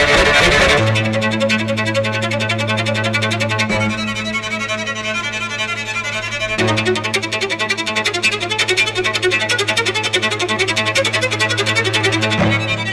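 Background music: a quick fiddle tune of rapid notes over a steady low held drone.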